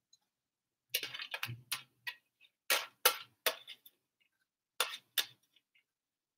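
Short light knocks and clicks of a white tray and hands against a stainless steel bowl as chopped mitsuba and myoga are pushed off the tray into it. They come in small groups after a silent first second.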